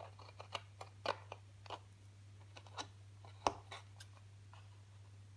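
Scissors snipping into black photo card: a run of short, irregular snips, the loudest about three and a half seconds in.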